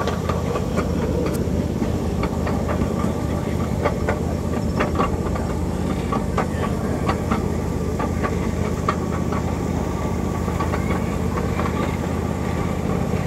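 Miniature train running along its track, heard from a passenger car. A steady low engine drone runs under irregular clicks and clacks from the wheels and cars.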